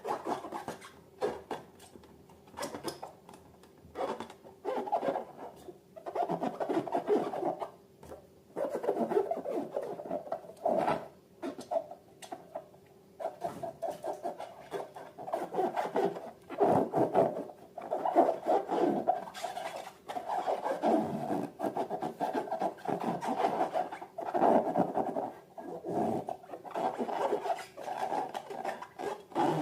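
Slime and rubber balloons being handled up close: irregular bursts of rubbing, squishing and crackling, some brief and some running for a second or two.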